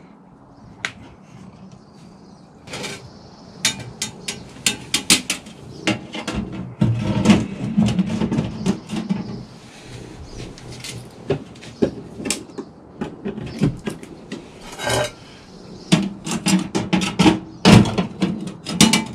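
Metal clinks and clatters from a Little Chief electric smoker: its racks and sheet-metal box knocked as they are loaded and handled. Near the end the wood-chip pan is pushed into its slot.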